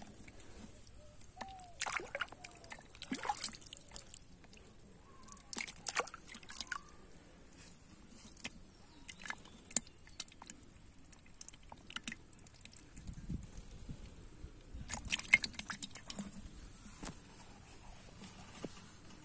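Hands digging and pulling at wet mud around a hole, squelching and crackling in scattered short bursts, with louder clusters about two, six and fifteen seconds in.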